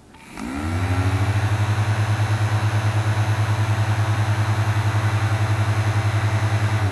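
Miniature air conditioner's small electric fan motor switched on: it spins up with a rising whine over about half a second, then runs at a steady speed with a loud low hum that pulses rapidly, and cuts off at the end.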